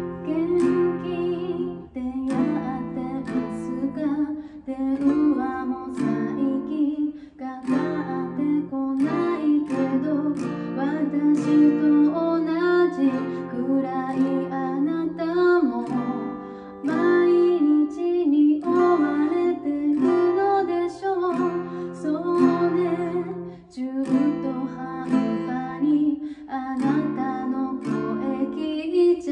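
A woman singing in Japanese while strumming chords on an acoustic guitar.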